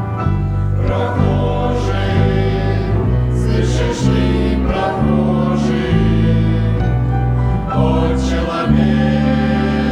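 A choir singing a Christian song over instrumental accompaniment, with held chords and a bass line that changes note about every second.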